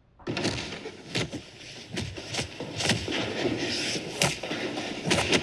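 Gunfire sound effects starting about a quarter second in: irregularly spaced shots over a continuous noisy din.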